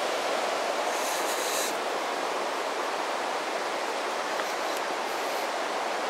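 Steady rushing of Lynn Creek, a fast mountain creek running over a boulder bed, heard as an even hiss-like roar, with a brief high hiss about a second in.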